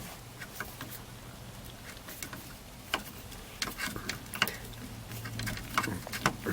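Scattered light clicks and ticks of hand tools at a steering column, over a low steady hum, as the screw-type pin that retains the ignition lock cylinder is worked out.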